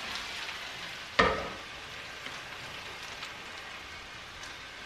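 Hot skillet of cooked chicken and vegetables sizzling, a steady hiss, with a single clunk about a second in.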